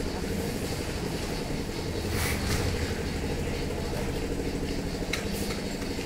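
Engine of a concrete mixer running steadily at a constant speed during slab casting, with a couple of brief clatters over it about two and five seconds in.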